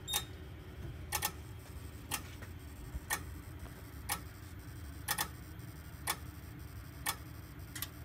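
Wheelock NS horn-strobe ticking with each flash, sharp clicks about once a second, a few of them doubled. The horn is silenced while the strobes keep flashing: the alarm is still active, silenced but not yet reset.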